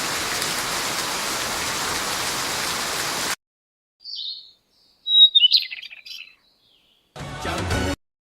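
Steady rain hiss that cuts off abruptly after about three seconds. Then come a few short, high bird chirps and a brief burst of rain noise near the end, with dead silence between them.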